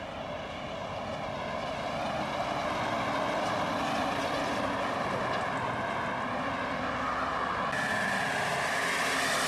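Diesel truck engine and tyre noise as a Volvo FH lorry drives up and passes close by, growing louder over the first few seconds. Near the end, after a cut, an older Mercedes-Benz cab-over truck with a trailer approaches with its diesel engine running.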